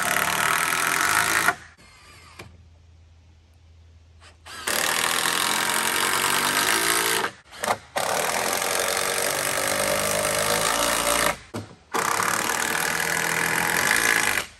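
Power drill driving screws into the sawmill's wooden frame, run in four bursts: a short one at the start, then three of about three seconds each with brief pauses between.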